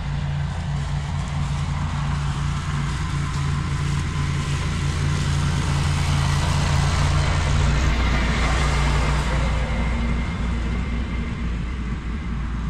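Ventrac compact tractor running under load with its Tough Cut mower deck cutting overgrown grass: a steady engine drone with a hiss of cutting over it. It grows louder around the middle and eases back near the end.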